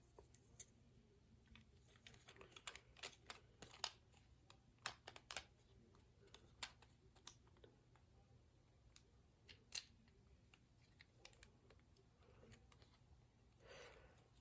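Faint, irregular small clicks and taps of plastic toy parts being handled and fitted together while a toy's woosh mechanism is reassembled.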